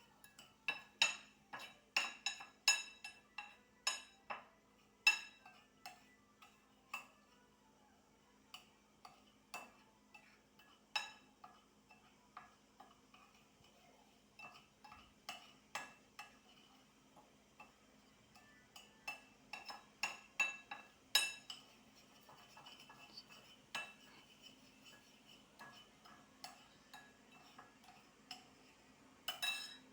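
Irregular light clinks and taps of utensils against crockery, each ringing briefly, several a second at times and sparser in between, over a faint steady hum.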